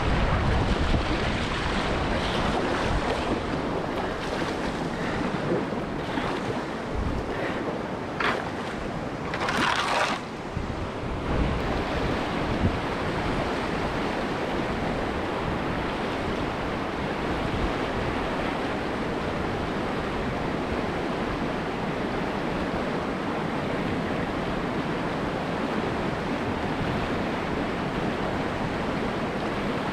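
Whitewater rapids rushing steadily, heard close to the water, with a few sharp splashes about seven to eleven seconds in.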